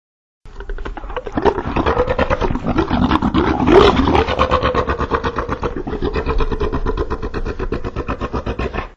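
Thanator creature sound effect: a long, fast-pulsing growl that starts about half a second in, peaks near the middle and cuts off abruptly just before the end.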